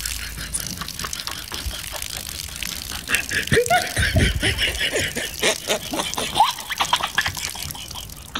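Laughter, getting louder about three seconds in.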